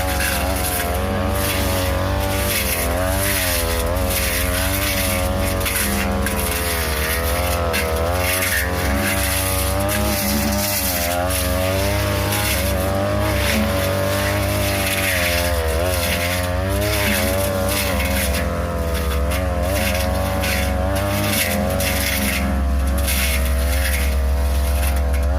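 A 42cc brush cutter engine running at high speed, its pitch wavering up and down again and again as the blade cuts through tall grass and brush.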